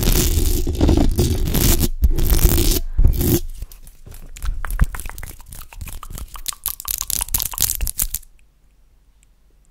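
Fingers with long acrylic nails rubbing and scratching the metal grille of a microphone: a loud, dense scratching with heavy rumble. About three and a half seconds in it stops and gives way to quieter, scattered clicks and crackles from the hands moving close to the mic, which die away near the end.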